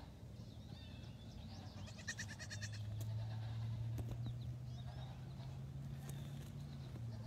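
Baby goats bleating: a short, rapidly fluttering high call about two seconds in and a few fainter calls later, over a steady low hum that sets in shortly after the first call.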